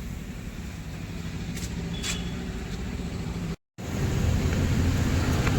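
A motor running with a steady low hum. It cuts out for a moment about three and a half seconds in and comes back louder.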